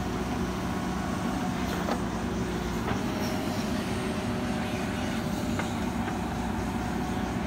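JCB 3DX backhoe loader's diesel engine running steadily under load as the backhoe digs, with a few faint knocks from the working arm and bucket.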